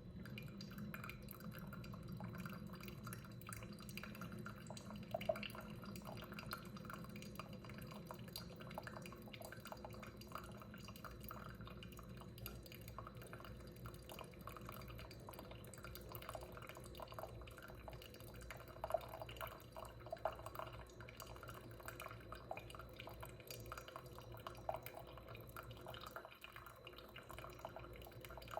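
Single-serve K-cup coffee maker brewing: coffee dripping and spitting into the cup over a low, steady hum from the machine, with scattered irregular pops.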